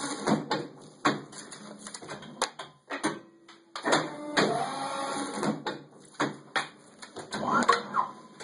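Polar 55 EM guillotine paper cutter working through a cut: a whirring stroke about four seconds in that rises and falls in pitch, and another near the end. Around it come sharp clicks and knocks as the stacks of paper covers are handled on the metal table.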